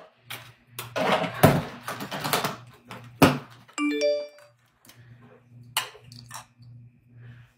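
A short rising three-note electronic notification chime about four seconds in, among loud thumps and rustling as the phone is handled and bumped, over a low pulsing hum.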